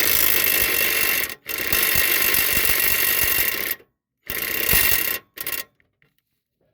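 Ryobi P235 cordless impact driver hammering a mower blade bolt through a 15/16 socket: a run of fast, dense impacts, then two more runs and a short final burst, stopping well before the end.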